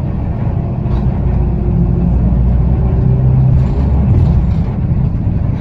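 Inside a TransJakarta city bus under way: a steady low rumble of engine and road noise, a little louder in the middle.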